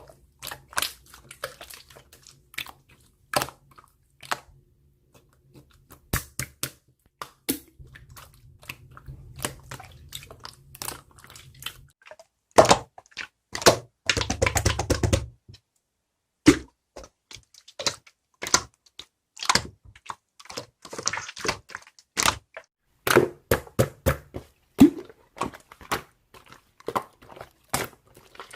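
Irregular close-up clicks, taps and crinkling handling noises, with a denser burst of rustling about fourteen seconds in.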